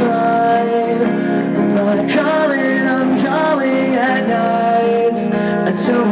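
Live rock band playing an acoustic-leaning pop-punk song, with guitars and drums under a sung melody and a few cymbal crashes near the end.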